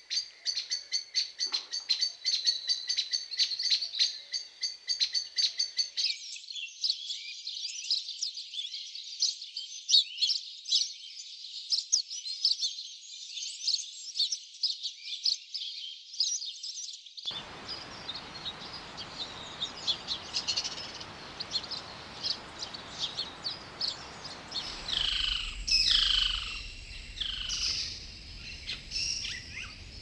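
Many birds chirping and calling in rapid, overlapping short high notes. About 17 s in a steady hiss of forest background joins them, and near the end a few louder calls slide downward in pitch.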